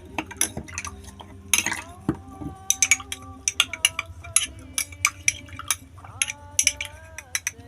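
A spoon clinking irregularly against a glass, several taps a second, while stirring leaves steeping in warm water.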